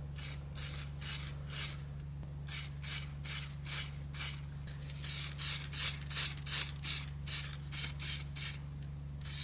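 Hand sanding: sandpaper rubbed over wood in short, even strokes, about two a second, over a steady low hum.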